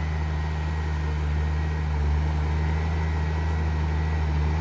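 Steady low engine hum running evenly, with no change in pace.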